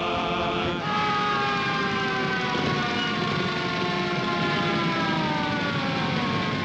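A siren wailing, its several tones falling slowly in pitch over a few seconds, over a low rumble of vehicle engines. It follows the last held note of a men's chorus, which ends about a second in.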